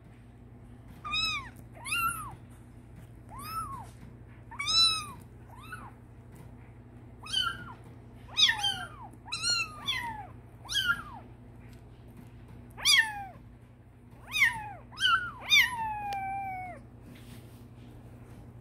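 Bengal kitten mews: a string of short, high-pitched calls with gaps between them, many rising and falling in pitch, the last one near the end drawn out and falling.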